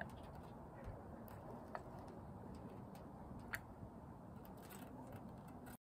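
Faint outdoor background hiss with a few scattered soft clicks, the clearest two about two seconds apart.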